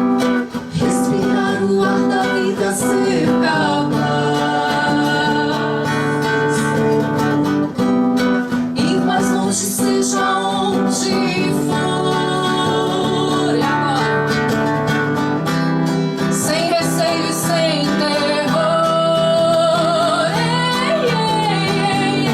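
Acoustic band playing an instrumental passage: strummed acoustic guitar under held low notes and a sustained melodic lead line that wavers with vibrato in the second half.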